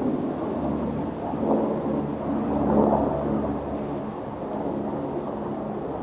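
Steady low rumble with a faint hum running through it, like distant traffic or machinery; no bird calls stand out.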